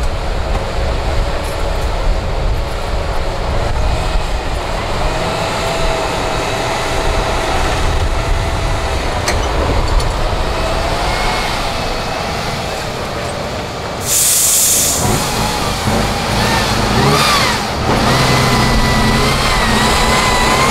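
An 8x8 trial truck's diesel engine labouring under load as it climbs a sandy mound, its pitch wavering with the throttle. About two-thirds of the way in there is a short burst of hiss, after which the engine revs higher.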